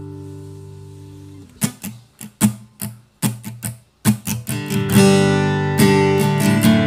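HEX Sting F300CE G acoustic guitar (solid Sitka spruce top, sapele back and sides): a chord rings out and fades, then comes a run of short, cut-off strums, and about halfway through full strummed chords ring on.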